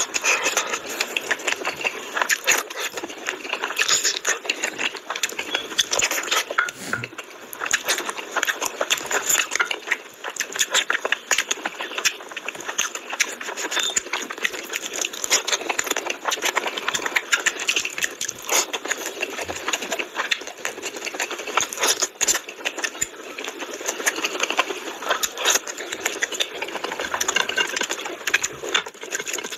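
Close-miked chewing and lip-smacking of a person eating rice and mutton curry by hand: a dense, continuous run of fast, irregular clicks.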